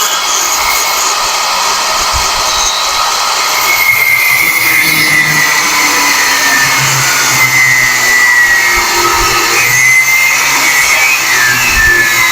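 Angle grinder with a cutoff wheel running continuously on steel bar stock, a steady rushing noise with a whine that wavers in pitch as the wheel is loaded.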